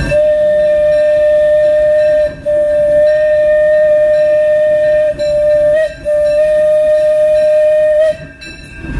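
Steam whistle of a 1955-built Disneyland Railroad steam locomotive, sounded from the cab as the engineer pulls the cord: one steady, single-pitched blast held for about eight seconds and briefly broken three times. Under it runs the train's low rolling rumble.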